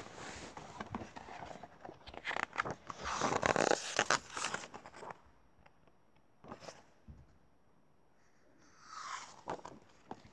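Rustling and scraping handling noise close to the microphone as the recording device is moved about, dense for the first half, then a quiet stretch with a few light clicks and one more brief swish near the end.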